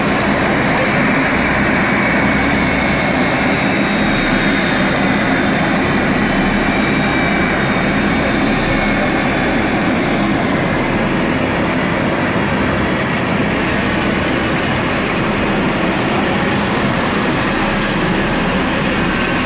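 Airbus A320's jet engines running at idle: a loud, steady rush with a faint high whine laid over it.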